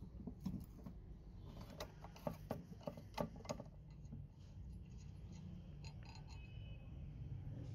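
Light metal clicks and taps as the steel lever handle of a hand-press juicer is fitted onto its pivot and a bolt is pushed through; most of the clicks fall in the first half.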